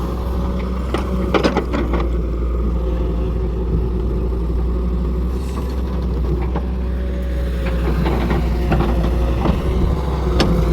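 An engine running steadily, with a few sharp knocks or clanks about a second and a half in and again near the end.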